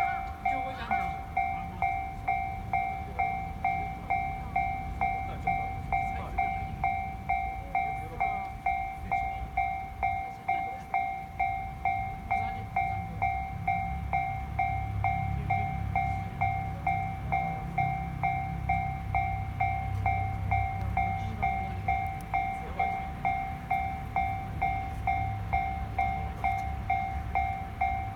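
Japanese level-crossing warning bell ringing in a fast, regular two-tone pulse while the crossing stays closed. From about twelve seconds in, a train's low rumble rises under it as the train runs past.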